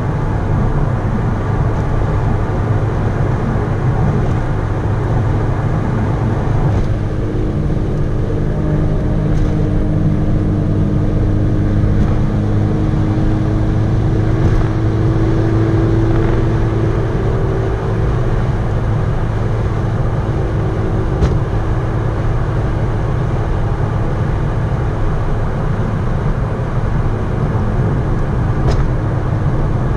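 Mitsubishi Lancer Evolution IV's turbocharged 4G63 four-cylinder running at a steady highway cruise, heard from inside the cabin as a continuous low engine drone mixed with tyre and road noise. A faint engine tone rises a little partway through.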